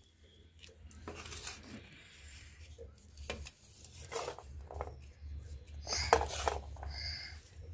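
Steel spoon scraping and clinking on a stainless steel plate while sugar-coated amla candy is spooned into a glass jar, giving a few light, irregular taps and clicks.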